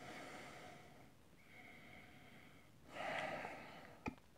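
A man sniffing a glass of whisky: soft breaths through the nose at the rim of the glass, about three in a row, the loudest about three seconds in. A short click follows near the end.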